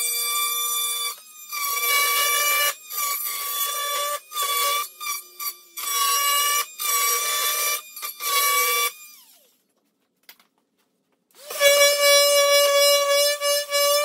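Oscillating multi-tool blade buzzing with a high whine as it trims the top edge of a particleboard cabinet side. The whine cuts out and back in several times, then winds down in pitch and stops about nine seconds in. After a short silence, a Ryobi orbital sander starts up near the end with a rising, steady whine.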